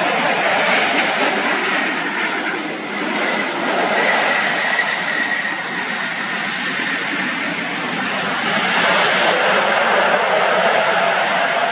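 Airliner passing close overhead: a loud, steady rush of engine noise with a whine that slowly falls in pitch as it goes by.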